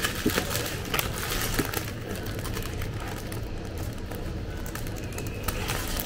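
Steady low hum of a café interior, with a few clicks and paper-bag crinkling in the first couple of seconds.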